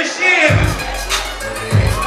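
Loud hip hop music with heavy bass hits and a rapped vocal.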